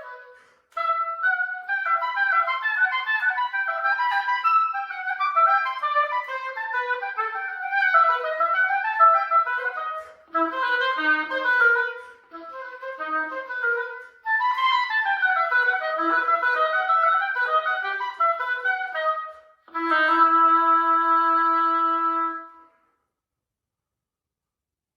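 Solo oboe playing quick running passages in phrases broken by short pauses, then closing on one long held note about twenty seconds in before falling silent.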